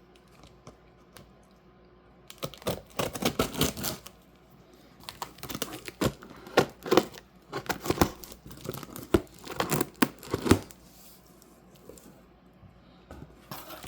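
Packing material of a shipped parcel being torn open and crumpled by hand, in irregular bursts of ripping and rustling that start about two seconds in and die down near the end.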